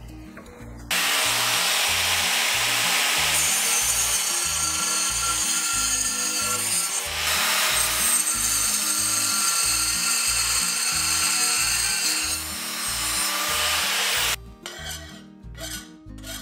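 An angle grinder grinds a steel flat bar clamped in a bench vise. It starts about a second in, runs steadily and cuts off near the end. A hand file then rasps across the steel edge in a few quick strokes.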